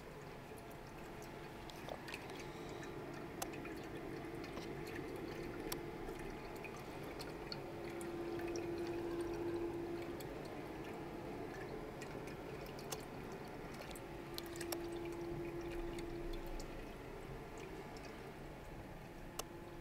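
Water trickling and splashing as it circulates through a reef aquarium's overflow and return hoses, with scattered drips and a steady hum that swells twice.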